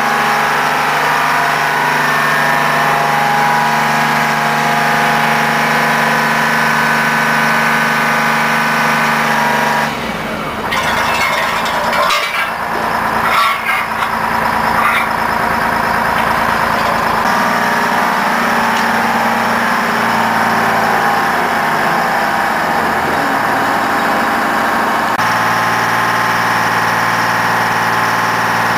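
The crane's engine runs steadily at idle. About a third of the way in, its note changes for several seconds and a few metal knocks are heard, then the steady running returns.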